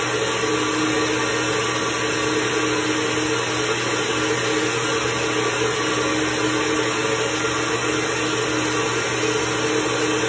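SuperFlow SF-1020 flow bench running steadily, drawing air through a Harley-Davidson CVO 110 cylinder head during a flow test: a constant rush of air with a steady motor drone.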